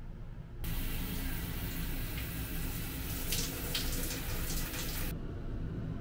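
Handheld shower head spraying water, the spray hissing and splattering on a hand held under it. It starts suddenly about half a second in and cuts off suddenly about five seconds in.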